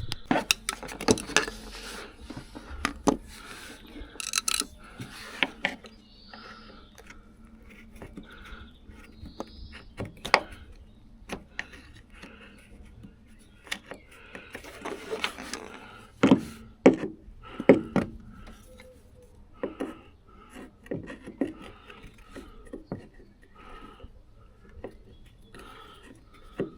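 Hand tools and plastic trim clips working on a car's side skirt: scattered clicks, knocks and scrapes as a screwdriver prises the panel loose, with a few louder knocks around the middle.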